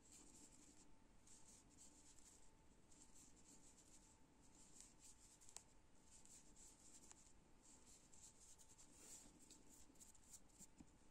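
Near silence with faint, intermittent scratchy rustling of yarn and a metal crochet hook being worked through single crochet stitches, plus a couple of tiny clicks.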